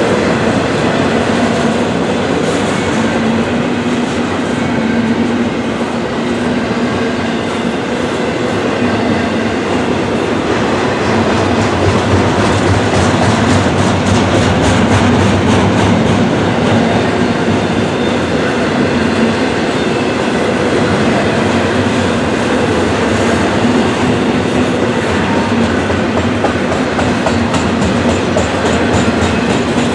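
Freight train rolling by at close range: a steady rumble of steel wheels on rail with the clickety-clack of the wheels passing over rail joints.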